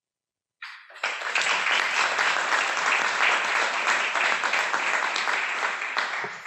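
Applause from a seated panel and audience in a hall, starting about half a second in and dying away near the end.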